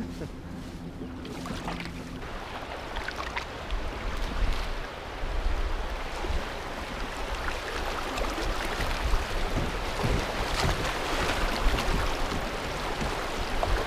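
Rushing river water of a shallow riffle around a fishing kayak, growing louder from about four seconds in as the kayak moves into faster, choppier current, with wind rumbling on the microphone.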